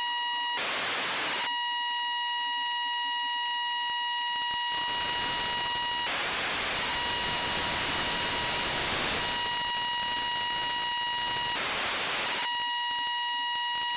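Demodulated FM downlink audio from the AO-92 (Fox-1D) amateur satellite: a steady, high beeping tone, broken by bursts of static hiss where the signal fades into the noise. The hiss comes briefly about half a second in, for several seconds from about five seconds in, and again briefly near the end.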